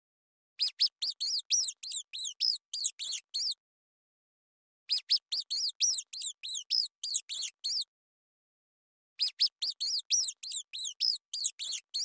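Rat squeaking: three runs of rapid, high-pitched squeaks, each run about three seconds long at about five squeaks a second, with pauses between.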